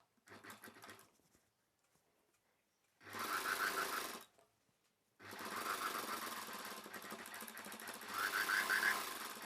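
Sewing machine stitching a seam that joins two pieces of blouse fabric, in runs. There is a short burst just after the start and about a second of stitching near three seconds in, then a long steady run from about five seconds in that grows louder near the end.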